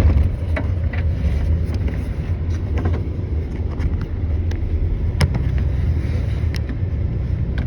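Norfolk Southern grain train's freight cars rolling past: a steady, heavy low rumble with occasional sharp clacks from the wheels.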